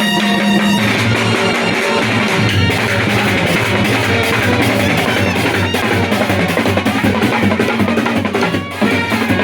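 Music with drums and guitar.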